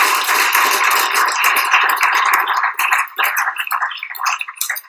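Audience applauding, thinning to scattered claps in the last second or two.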